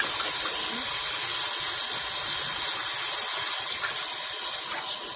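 Kitchen sink tap running steadily, a spoon being rinsed under the stream.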